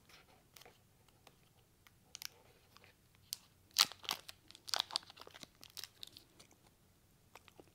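The wrapper of a small cheese portion being worked open by hand: irregular crinkling and tearing crackles, the loudest about four seconds in.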